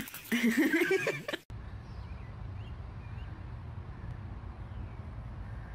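A brief, loud vocal sound that wavers in pitch and ends abruptly about a second and a half in. Then a steady low rumble, with a few faint, short rising chirps.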